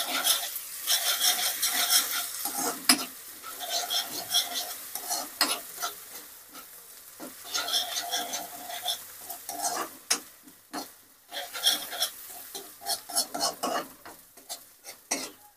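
Chopped onions and green chilli sizzling in hot oil in a kadhai, being fried until lightly browned, while a spatula stirs and scrapes them around the pan with frequent short clicks and scrapes against the metal.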